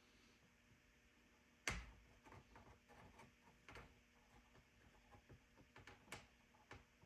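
Faint, scattered clicks and light knocks of tools and parts being handled, with one sharper knock a little under two seconds in.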